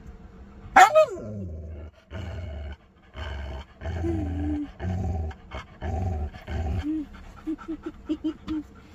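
Siberian husky vocalising in protest as its feet are tickled, sounding like "no... no... no": a sharp high cry that falls steeply in pitch about a second in, then a run of drawn-out pitched vocalisations, ending in several short quick ones.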